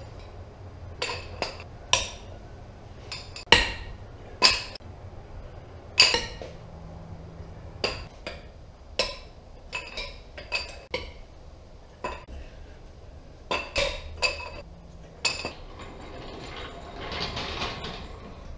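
Sharp metallic clinks and clanks, one every half second to a second, as a socket on a long breaker bar is fitted to a Chevrolet Silverado's lug nuts and the nuts are broken loose one by one. Near the end a longer, rougher scraping noise follows as the floor jack is worked into place.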